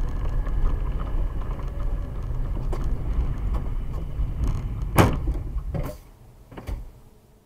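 Steady low road and engine rumble inside a moving car, then one loud sharp bang about five seconds in as an oncoming car strikes it, a smaller knock just after, and the rumble falls away.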